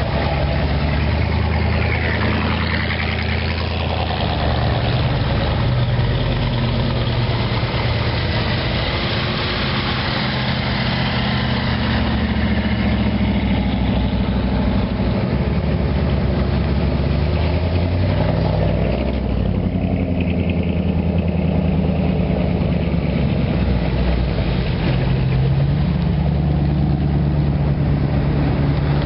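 Classic car engines idling and running at low speed as cars roll slowly past, a steady low engine rumble whose pitch shifts a few times as one car gives way to the next.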